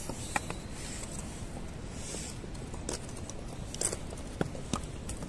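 Pack horses walking past over stone, a handful of irregular hoof knocks on rock.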